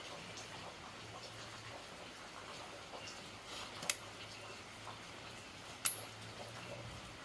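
Small metal objects being handled: light ticks and clicks, with two sharp metallic clinks about four and six seconds in, the second ringing briefly. A faint low hum sits underneath.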